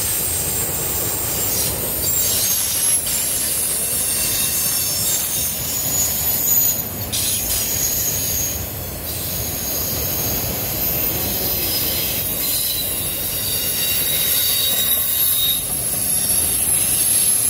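Freight train's enclosed autorack cars rolling past with a steady rumble, their steel wheels squealing in thin high-pitched tones against the rails on the curve.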